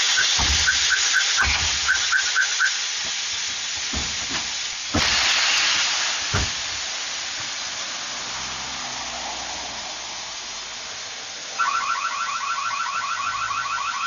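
Pickup truck's car alarm sounding: rapid repeated chirps in the first few seconds, then a fast pulsing warble starting near the end, over a loud steady hiss. A few dull thumps come in the first half.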